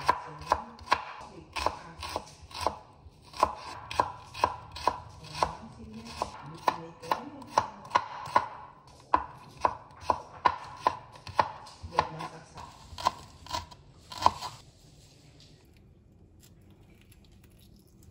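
Kitchen knife chopping shallots and garlic on a wooden cutting board: steady, sharp strikes about two or three a second, stopping about fourteen seconds in.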